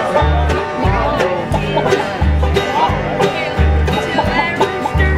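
Acoustic guitar and mandolin playing a bluegrass tune together. The guitar keeps a steady, even rhythm of low bass notes, and the mandolin's plucked notes run above it.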